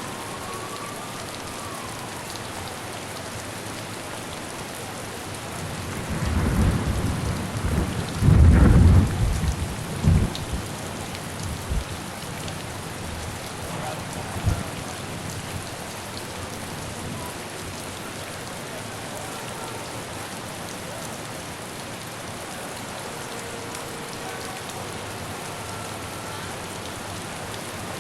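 Steady rain with a peal of thunder rumbling in about six seconds in, loudest a couple of seconds later and dying away after a few more seconds.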